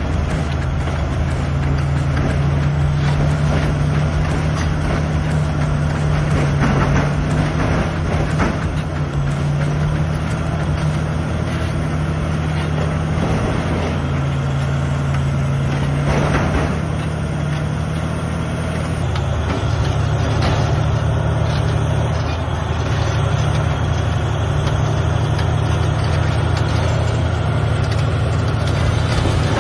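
Large crawler bulldozer's diesel engine running under load, a deep steady drone that dips and recovers in pitch a few times, with a few brief knocks.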